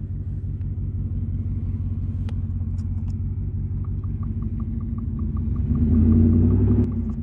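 Whipple-supercharged V8 of a 2022 Ford F-150 running as the truck drives off, heard from inside the cab. It swells louder under throttle about six seconds in, then eases off just before the end. A light, steady ticking starts about halfway through.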